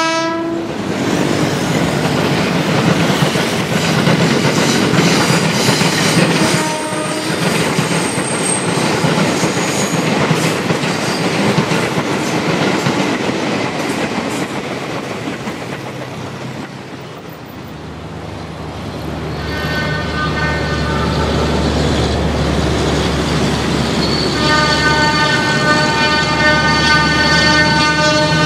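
A 205-series electric commuter train runs past with steady wheel-on-rail noise and clickety-clack, then fades away. About two-thirds of the way in, a diesel locomotive's low engine rumble comes up, and its horn sounds in long steady blasts as it approaches.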